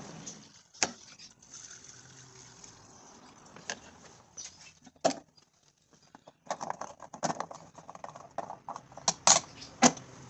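Handling sounds at a car's fuel filler: a few scattered knocks as the plastic fuel can is taken away, then a run of quick clicks as the fuel cap is screwed on, and two sharp snaps near the end as the fuel door is pushed shut.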